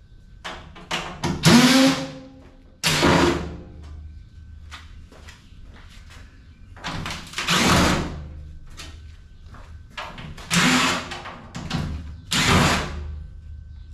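Metal parts of a scrap item being pried, scraped and knocked apart by hand: five loud scraping bursts a few seconds apart, with small knocks and clatter between.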